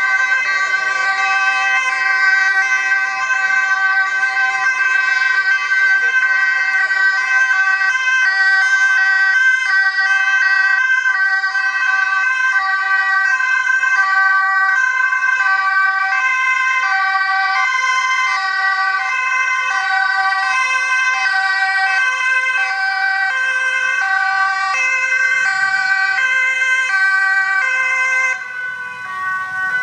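Dutch police two-tone sirens sounding continuously, alternating high and low about once a second as the escorting police motorcycles pass; the sound dips briefly near the end.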